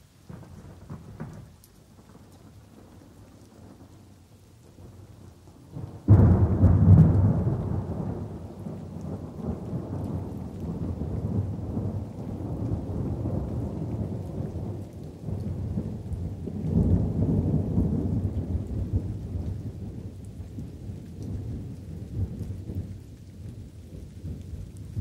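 Thunderstorm with light rain: low distant rumbling, then a sudden loud thunderclap about six seconds in that rolls on at length, swelling again about two-thirds of the way through, over a steady patter of rain.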